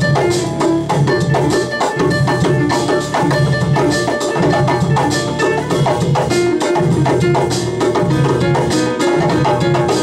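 Live band music: djembe and conga hand drums keep a steady rhythm under quick struck or plucked melodic notes.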